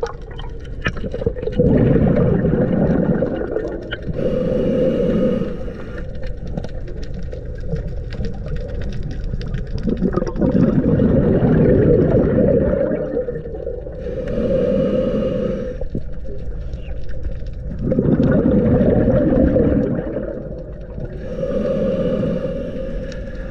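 Scuba diver breathing through a regulator underwater: three breaths about eight seconds apart, each a draw through the demand valve and a burst of exhaled bubbles.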